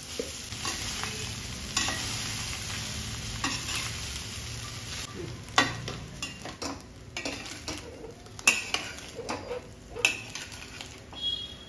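Rice and vegetables stir-frying in a stainless steel kadai: a steady sizzle for the first few seconds, then scattered knocks and scrapes as a metal spatula stirs and tosses the rice against the pan.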